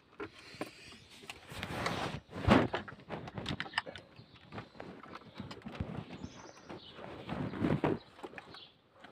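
Handling noise: rustling and scraping with irregular clicks and knocks as the phone's microphone is covered and moved, with one louder knock about two and a half seconds in.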